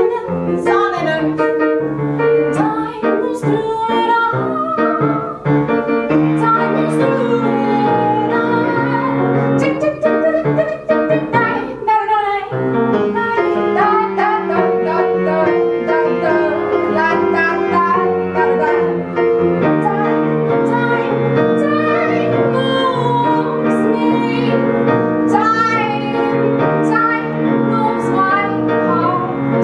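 A woman singing with her own upright piano accompaniment, the voice wavering over sustained chords.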